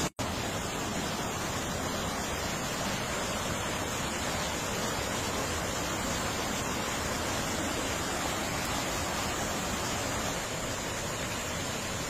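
Steady, unbroken rushing of a swollen, muddy creek in flood. The sound cuts out for a split second right at the start.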